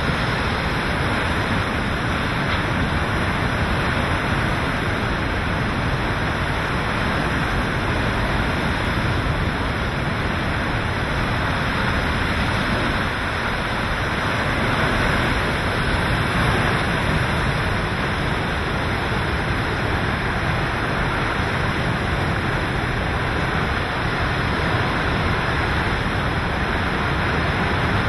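Hurricane-force wind and driving rain, a steady dense rush with no let-up, the gusts buffeting the microphone.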